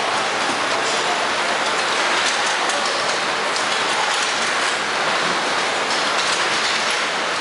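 Steady din of a car assembly plant's machinery: a constant hiss with faint scattered clicks and clatter.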